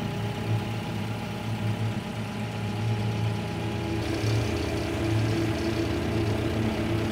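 Propane forklift engine idling steadily, with a higher hiss added about four seconds in.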